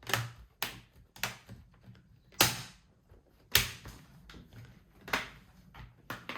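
Plastic laptop screen bezel clips snapping into place as the bezel is pressed on by hand: a string of irregular sharp clicks, with louder snaps about two and a half seconds in, around three and a half seconds and near five seconds.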